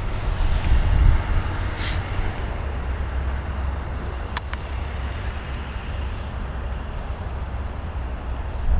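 Steady low rumble, with two quick light clicks about four and a half seconds in.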